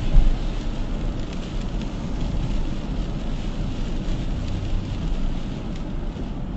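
Passenger van's road and engine noise heard from inside the cabin while driving: a steady low rumble with tyre hiss, and one short low thump near the start.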